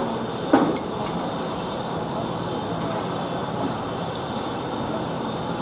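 Oil sizzling steadily under a bean-filled flatbread frying on a large iron griddle. A brief louder sound cuts in about half a second in.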